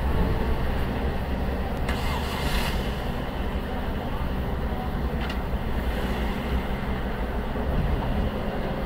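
Steady low rumble of heavy lorry engines manoeuvring, heard from inside a car, with a brief hiss about two seconds in.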